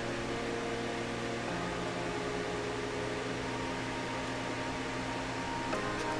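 Soft background music of held synth chords, the chord changing about every two seconds.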